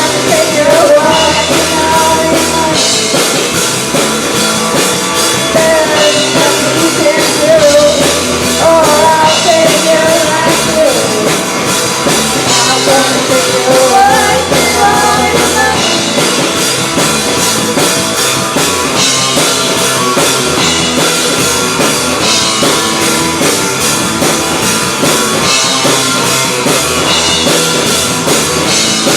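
Live rock band playing a song with drums, bass and guitars. A voice sings over the first half, then the band carries on without vocals.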